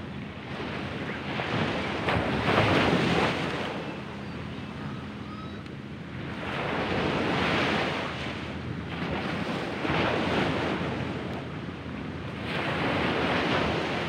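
Small waves breaking on a sandy beach and washing up the shore, the surf swelling and fading four times.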